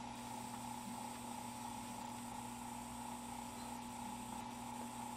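Battery-lantern electronic fluorescent ballast running a small tube, giving a faint, steady squealing sound over a light hiss. The squeal comes from the ballast's switch being set to dual-lamp mode with only one lamp connected, so the unloaded second transformer squeals.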